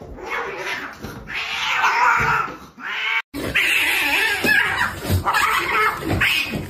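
Cats fighting with yowling, in two bouts split by a brief dropout to silence a little over three seconds in.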